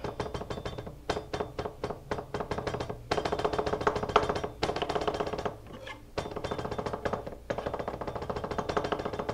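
Kitchen knife rapidly rock-chopping garlic on a plastic cutting board: fast, even knife taps several times a second, broken by a few short pauses.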